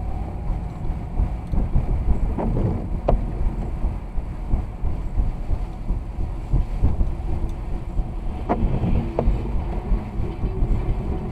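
A car driving on a snowy road, with a steady low rumble of engine and tyres heard from inside the car. A few sharp clicks or knocks sound over it.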